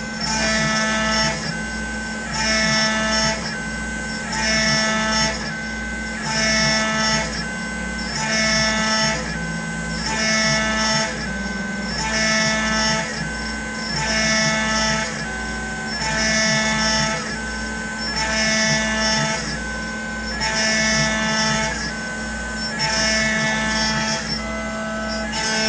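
A Chinese 6040 CNC router's spindle at 12,500 RPM milling aluminium dry with a 1/8-inch three-flute end mill on an adaptive pocketing path. A steady spindle hum and whine sits under a ringing cutting tone that swells and fades about every two seconds as the cutter engages on each pass.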